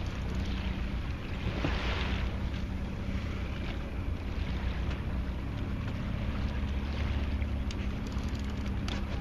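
Fishing boat's engine running steadily as a low hum, with wind and water rushing and swelling over it, and a few sharp clicks near the end.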